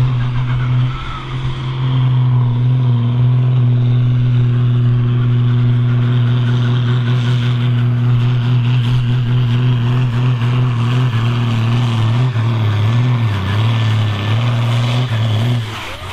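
John Deere tractor's diesel engine under full load, pulling a weight sled: a loud, steady deep drone. Over the last few seconds the pitch wavers and sags as the engine is pulled down, then it eases off just before the end.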